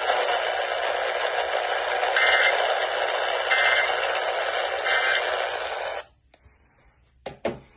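Emergency Alert System end-of-message signal: three short data-burst squawks about a second and a half apart over steady hiss from a radio receiver. The hiss cuts off suddenly about six seconds in, and two sharp clicks follow near the end.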